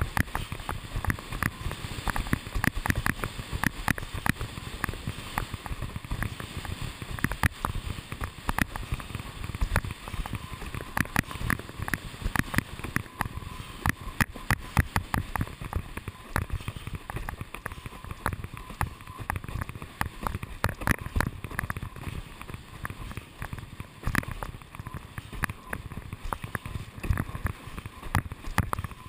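A windsurf board planing fast over choppy water: a constant rush of water and wind, broken by rapid, irregular slaps and knocks as the hull strikes the chop.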